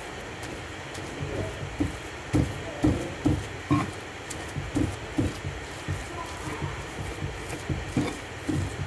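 Pestle pounding and mashing boiled potatoes into a spice paste in a mortar: dull, irregular thuds, sometimes two or three a second, with the pestle scraping the potato between strokes.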